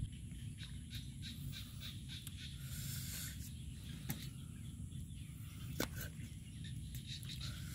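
Cleaver cutting boiled pig intestine on a wooden chopping board, with two sharp knocks of the blade on the board about four and six seconds in, over a low steady rumble.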